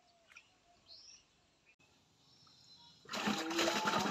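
Faint bird chirps over quiet, then a sudden loud rushing noise about three seconds in.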